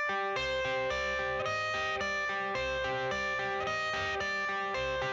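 Background music: an electric guitar riff with a steady beat, the intro of a rock song before the vocals come in.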